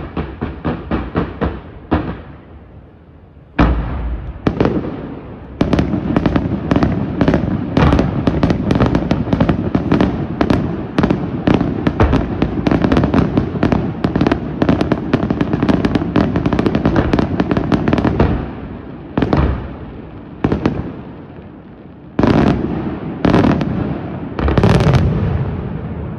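Fireworks display: a quick run of crackling pops, a short lull and two single bangs, then a dense barrage of shell bursts for about twelve seconds, followed by a few separate bangs and a closing cluster.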